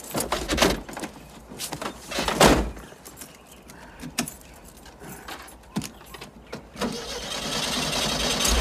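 Knocks and clatter inside a van's cab as the driver gets in and settles at the wheel, with keys jangling and a heavier thud about two and a half seconds in. A rising hiss builds near the end.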